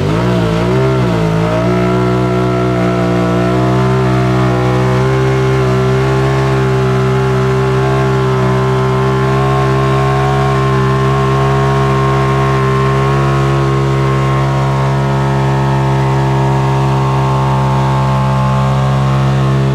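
Off-road vehicle engine held at high revs. Its pitch wavers for the first couple of seconds, then stays steady and loud.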